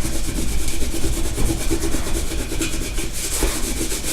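A damp Aqua Magic Absolute cleaning cloth scrubbed with quick back-and-forth strokes over a kettle, rubbing off burnt-on food and sticky grease.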